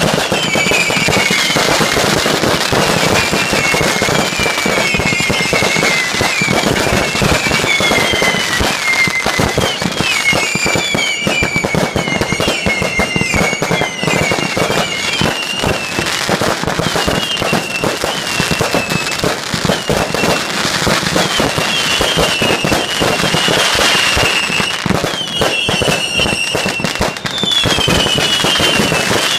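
Consumer fireworks display: a continuous barrage of bangs and crackling, laced with many short whistling tones that rise and fall.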